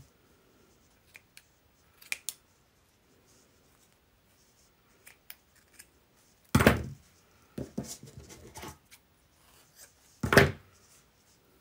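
Scissors snipping among raw wool locks: a few light clicks, then two louder snips about six and a half and ten seconds in, with softer rustling of the fleece between them.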